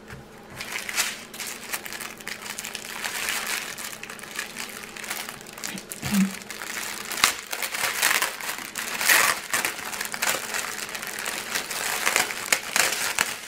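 Plastic packaging crinkling and crackling as it is handled: a small clear bag and a bag of diamond painting drill packets being lifted and turned, with many quick sharp rustles.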